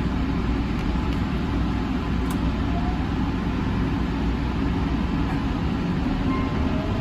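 Electric commuter train heard from inside the driver's cab: a steady low hum and rumble of the train standing at the platform, with the faint rising whine of the traction motors starting about three seconds in and growing clearer near the end as it begins to pull away.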